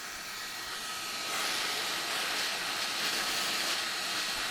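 Hot air rework station blowing onto a circuit board to reflow the solder under a BGA chip: a steady rush of air that grows louder about a second in, with a faint thin whine underneath.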